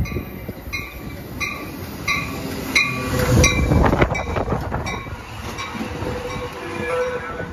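Amtrak Pacific Surfliner bilevel passenger train rolling past close alongside the platform, its cars and wheels loudest about three to four seconds in. A crossing bell dings about once every 0.7 s through the first half, and a steady whine comes in from the train in the second half.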